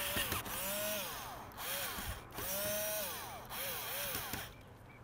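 Cordless power screwdriver running in about six short bursts, each rising and falling in pitch, as it tries to drive a small screw into a plastic part. The screw is not catching well.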